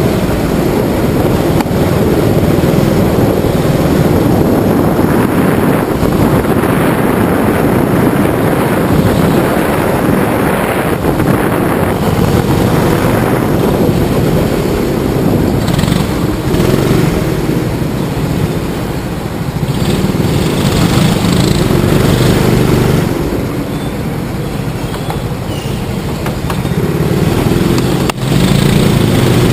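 Go-kart engine running hard, heard from the driver's seat, its sound easing off twice in the latter half as the kart slows for corners and picking up again near the end.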